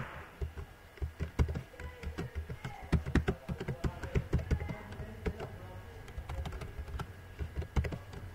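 Computer keyboard typing: quick, irregular keystrokes, entering a username and password into form fields.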